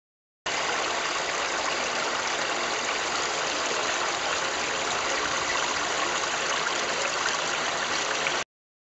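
Water from a lake outlet pouring through a wire-mesh-covered grille and splashing over a low step, a steady rush at full flow through the freshly cleared grille. It cuts in about half a second in and stops abruptly near the end.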